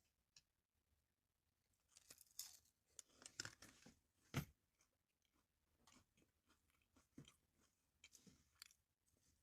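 Faint chewing and crunching sounds close to the microphone, with scattered small clicks and a sharper click about four and a half seconds in.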